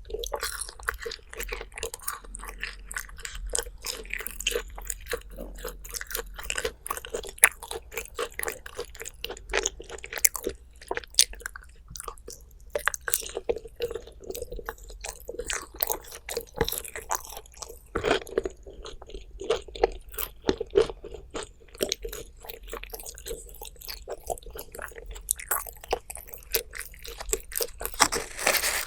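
Close-miked chewing and crunching of food, with many irregular crisp crunches.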